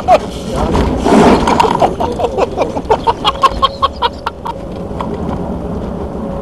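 Mitsubishi Lancer Evolution X running on an ice track, heard inside the cabin as steady engine and road noise. For the first four and a half seconds it is overlaid by a rapid series of short, loud sounds, each falling in pitch, with a noisy rush about a second in.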